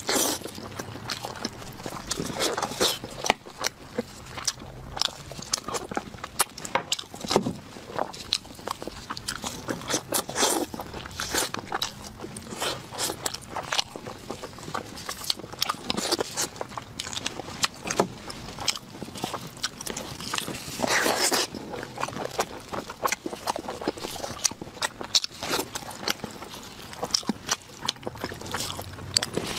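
Close-miked eating of sauce-glazed ribs: irregular wet chewing, biting and lip smacks, several a second, with tearing sounds as meat is pulled from the rib bone by gloved hands.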